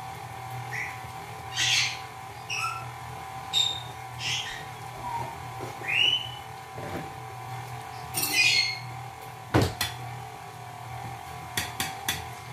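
Pet parrots squawking: a string of short, sharp calls and chirps, one rising then holding near the middle. A sharp knock about nine and a half seconds in and a few clicks near the end, over a steady hum.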